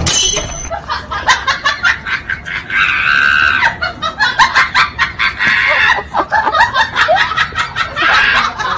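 Foil-lined plastic chip packet crinkling and crackling as it is filled with banana slices and handled, with bursts of high-pitched laughter about three seconds in and again near the end.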